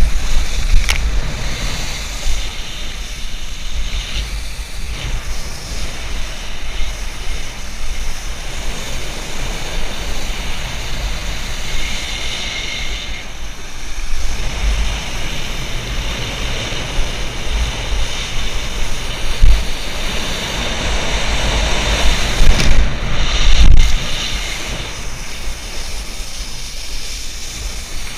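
Wind buffeting the action camera's microphone as a wakeboard is towed across the water, with the rush and hiss of water and spray off the board. The rushing grows louder around the middle and again about two-thirds through.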